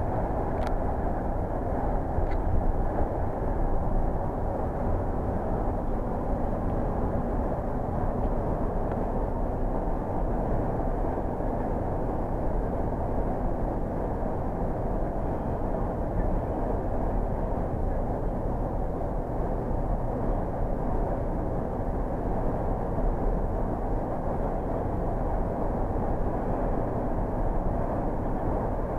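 Steady drone of a coach's engine and tyres, heard from inside the passenger cabin while it drives through a road tunnel. A short click about a second in.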